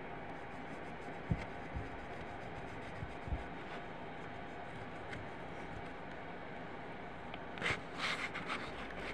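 Scratchy rubbing on a sheet of paper, a brief cluster of strokes near the end, over a steady room hum, with a few soft low knocks against the table in the first few seconds.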